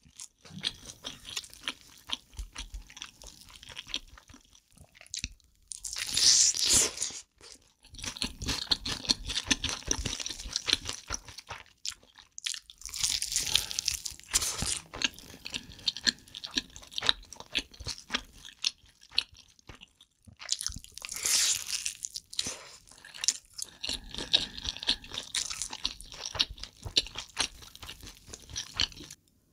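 Close-miked eating sounds: crunchy chewing with many small, crisp clicks, broken by three louder, hissy stretches of a second or two.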